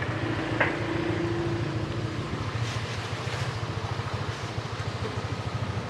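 Motorbike engine idling: a steady low rumble with a rapid even pulse. A short sharp click about half a second in.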